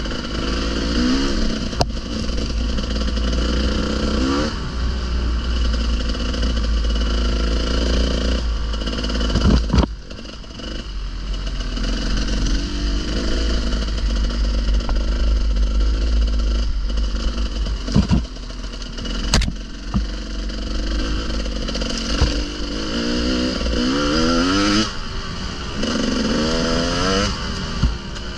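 Enduro motorcycle engine riding off-road, the revs rising and falling in quick sweeps as the rider works the throttle, most often near the end. A few sharp knocks and clatter come through at intervals.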